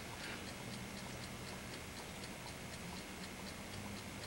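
Faint, steady ticking, about four ticks a second, over a low steady hum.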